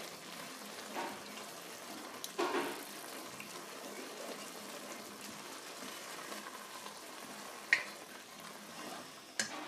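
Carrot soup simmering with a faint sizzle in a saucepan while processed cheese melts into it, stirred with a wooden spoon that knocks against the pot a few times.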